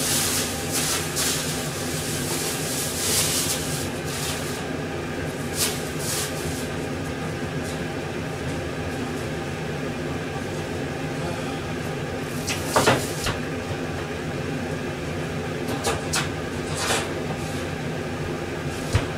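A small pot of beans simmering on a gas stove over a steady mechanical hum, with a hiss in the first few seconds and a few short sharp clicks, the loudest about two-thirds of the way through.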